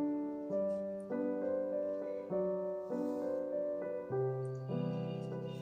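Gentle background piano music: a slow run of held keyboard notes and chords, changing about every half second.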